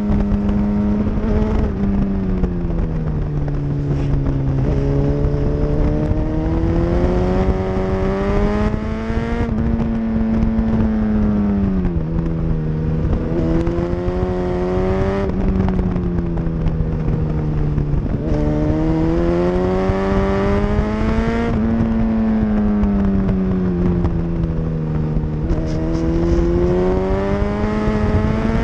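Sport motorcycle engine running hard on a race track, heard from the bike itself: its pitch climbs and falls every few seconds as the rider accelerates and rolls off through the corners. A steady rush of wind noise runs under it.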